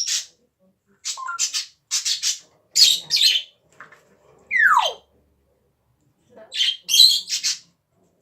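Pet parrot making a series of short coughing sounds in small clusters, with one falling whistle about halfway through.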